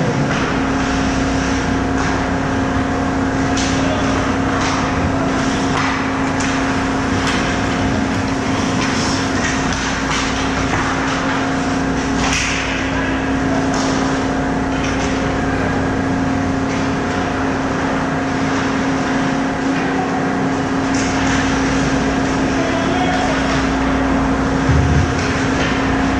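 Ice hockey rink sound: skate blades scraping and carving the ice in short hissing strokes, with sticks and puck clacking, over a steady low hum.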